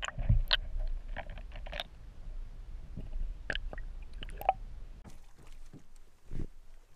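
Muffled sound picked up underwater: a low rumble at the start, then scattered clicks and light knocks, with a dull knock near the end.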